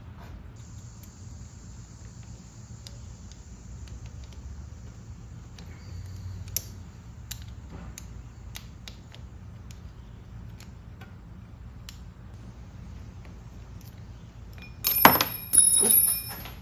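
Small metal parts and tools clicking during hand assembly of a phone-mount vibration dampener, ending with two loud metallic jangles near the end.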